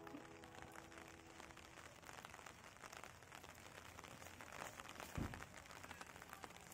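Faint steady rain falling, an even hiss of fine drop ticks, with one low thump about five seconds in.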